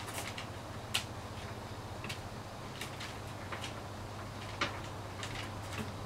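Scattered light clicks, roughly one a second, from a computer being operated, over a steady low hum.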